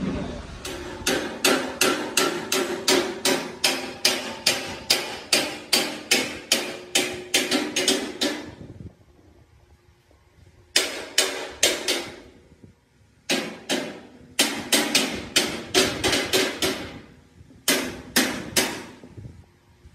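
Hammer blows on metal, quick and regular at about three a second, each ringing briefly. A long run of about twenty blows stops near the middle, and after a pause three shorter runs of blows follow.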